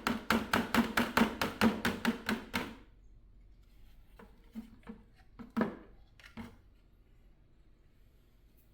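A rapid, even run of hollow plastic knocks, about five a second, as a Shark vacuum filter part is tapped to shake loose dirt out of it. It stops a little under three seconds in, followed by a few scattered light handling clicks.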